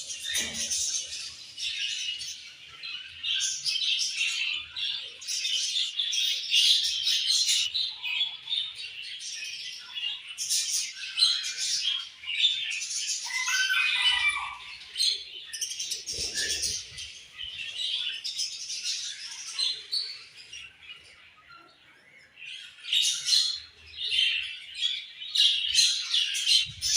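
Budgerigars chirping and chattering, many quick calls overlapping without a break, with a short lull about three quarters of the way through before the chatter picks up again.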